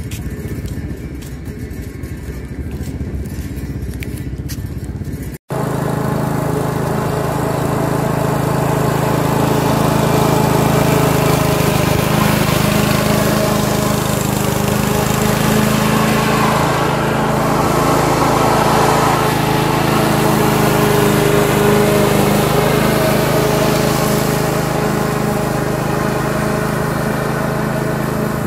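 Duricut 820 walk-behind lawn mower with a 159 cc single-cylinder petrol engine, running steadily. After a brief drop-out about five seconds in, it gets louder as it cuts grass.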